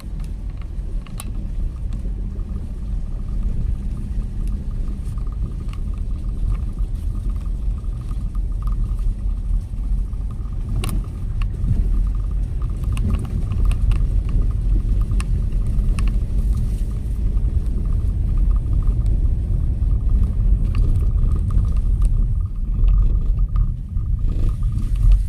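Car crawling in first gear over a rough, broken road, heard from inside the cabin: a steady low rumble of tyres and suspension, with a few sharp knocks and rattles as it jolts over the surface.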